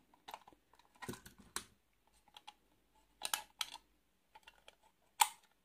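Light clicks and taps of a diecast metal toy truck being handled: the trailer is unhitched from the tractor cab and turned over in the hand. There are a few scattered clicks, with the sharpest one near the end.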